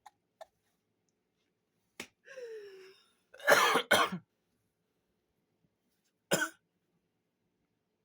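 A person coughing after a heavy hit of smoke: a short strained vocal sound, then two loud coughs in quick succession, and one more cough a couple of seconds later.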